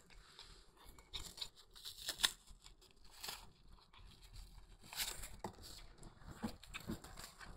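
A cat eagerly chewing and tearing at cooked chicken held in a hand: irregular soft smacking, tearing and clicking bites, loudest a little over two seconds in.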